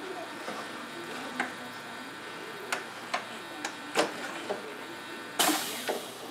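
Scattered clicks and small knocks from hands working at the wiring and parts inside the fuselage of a large RC jet model, with a short, loud hiss about five and a half seconds in.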